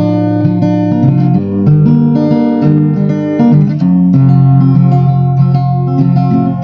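Background music: plucked guitar playing a melody over sustained chords.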